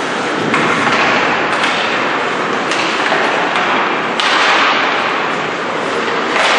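Ice hockey play on the rink: a continuous hiss of skates on the ice, with about five sudden louder surges and thuds of skates, sticks and puck.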